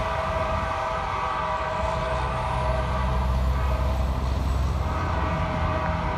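Freight train horn sounding one long, steady chord, with a low rumble of the rolling train that grows stronger about two seconds in.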